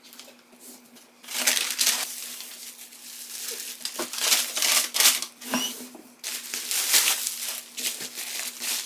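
A handbag's packaging being opened by hand: wrapping crinkling and rustling in irregular bursts, starting about a second in.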